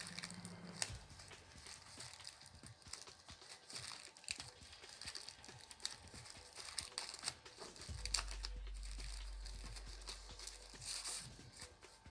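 Crinkling, rustling and light irregular clicks of hands handling a small adhesive foam pad and its wrapping. A low steady hum joins in about two thirds of the way through and lasts a few seconds.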